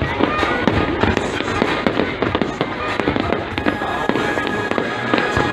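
Fireworks display going off in rapid succession: many sharp, overlapping bangs and pops, several a second, with no pause.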